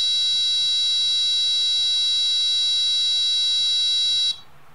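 Piezo buzzer driven by an Arduino, sounding one steady high-pitched tone as the laser trip-wire alarm. This is the programmed 5-second tone set off when the laser beam to the photoresistor is broken. It cuts off suddenly near the end.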